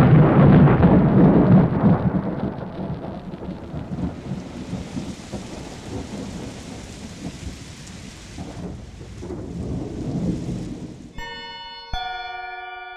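Thunderstorm: a loud rumble of thunder, then steady rain with a second, softer rumble, dying away. Near the end a ringing chime of bell-like tones sounds, struck twice.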